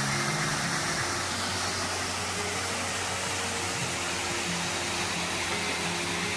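Steady rushing noise with faint low music tones underneath.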